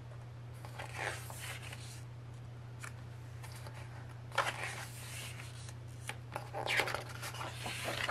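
Album packaging being handled: three short bursts of paper and card rustling and scraping, about a second in, around the middle and near the end, over a steady low electrical hum.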